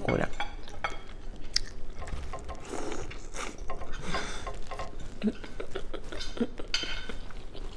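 Close-up eating sounds: biting into and chewing a sauce-coated corn on the cob, with irregular crunches and mouth clicks.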